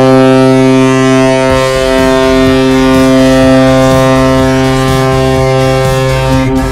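Vegas Golden Knights goal horn blaring: one long, loud, steady-pitched blast that dips briefly near the end.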